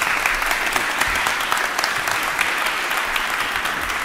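Audience applauding steadily: many hands clapping at once, a dense continuous patter.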